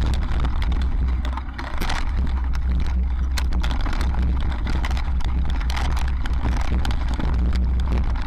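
Mountain bike rattling and knocking over a rocky dirt singletrack, knobby tyres clattering on stones, with many sharp clicks and a heavy low wind rumble on the microphone. The clatter eases briefly about a second and a half in.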